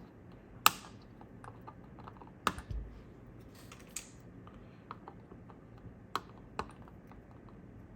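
Flush cutters snipping the excess leads of freshly soldered capacitors on a circuit board: a handful of sharp, short snips spread out, the loudest about a second in.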